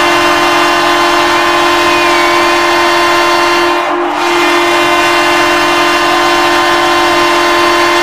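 Mississauga St. Michael's Majors ice hockey goal horn, a loud air horn sounding one long steady low note with a brief dip about four seconds in.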